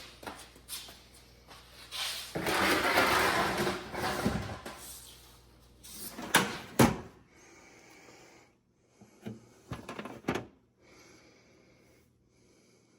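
Handling noise from tools and parts being gathered: a stretch of rustling and scraping, then a few sharp knocks and clunks.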